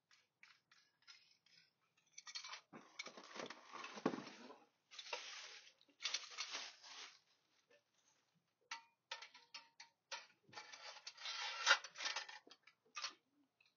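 Roof rack parts being handled and fitted together: a run of small clicks and knocks, with longer scraping and rattling stretches.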